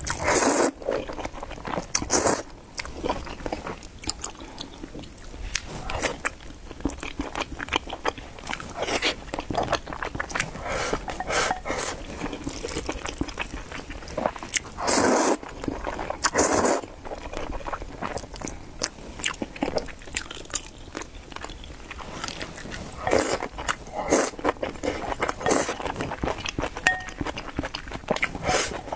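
Close-miked eating: a person slurping starch glass noodles in minced-pork sauce and chewing wetly, with a few longer slurps standing out among many short mouth sounds.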